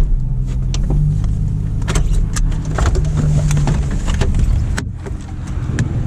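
Holden VS Commodore engine idling steadily, with a string of sharp clicks and knocks over it.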